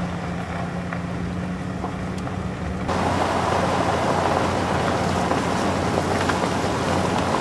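Truck driving on a dirt and gravel road: a steady engine hum with road noise, heard first from inside the cab, then about three seconds in a louder rushing of tyres on gravel and wind takes over, the engine hum still beneath.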